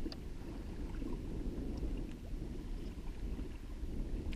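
Water lapping against a plastic kayak hull, with wind buffeting the microphone as a steady low rumble and a few faint ticks.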